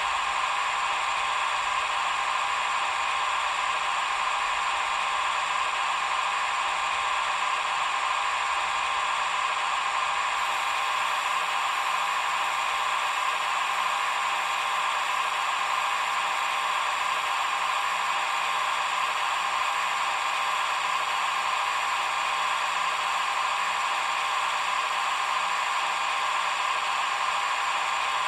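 Roco H0 model of the EDK 750 railway crane running its move-to-transport-position function: a steady whir as the hook is lowered.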